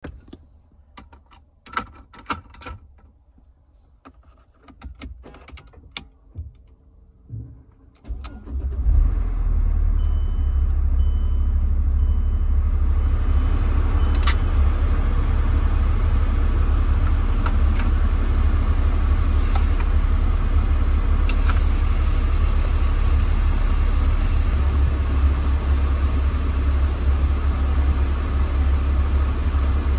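Scattered handling clicks, then a car engine starts about eight seconds in and runs at a steady idle. A sharp click about fourteen seconds in as the aerosol fogger's button is pressed, followed by the steady high hiss of the can spraying mist into the cabin over the engine hum.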